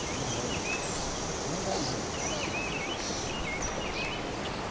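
Small birds chirping and singing in short, quick notes over a steady outdoor hiss.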